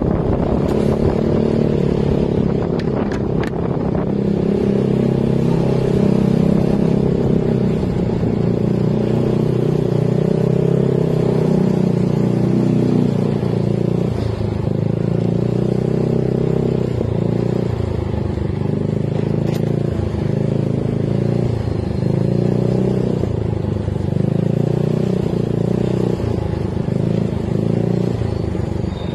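Motor scooter's small engine running steadily while being ridden, its pitch wavering up and down a little with changes in speed.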